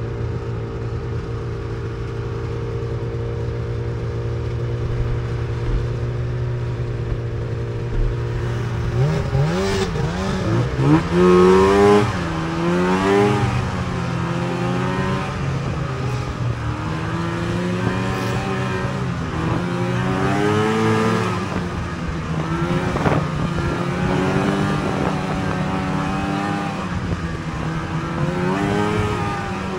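Two-stroke snowmobile engine idling steadily, then about nine seconds in pulling away, its revs rising and falling again and again as it rides along the trail.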